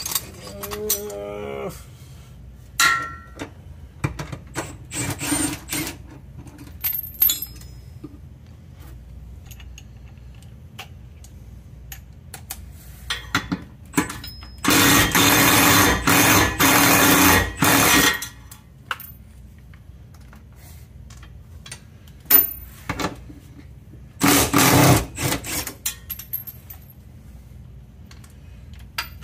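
Hand tools clicking and clinking on the transmission crossmember bolt, with a cordless power tool running for about three seconds near the middle and again briefly later on.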